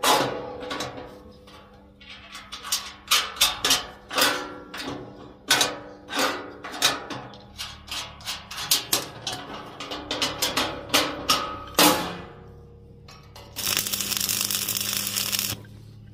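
Hammer blows on steel, about two dozen irregular strikes, each ringing on after it. Near the end comes a steady hiss lasting about two seconds, which stops abruptly.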